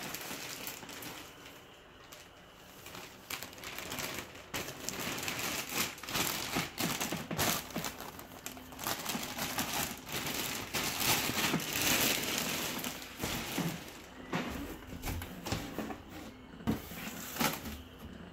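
Clear plastic wrapping crinkling and rustling as a large plush toy inside it is handled, loudest about halfway through.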